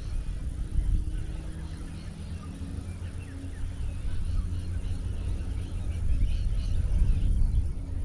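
Wind buffeting the microphone as an uneven low rumble, with faint bird chirps scattered behind it, more of them near the end.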